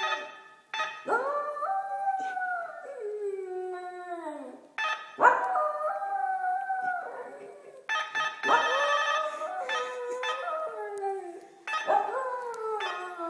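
West Highland White Terrier howling along to a doorbell: about four long howls, each sliding down in pitch, with the doorbell chimes ringing out several times as the howls begin.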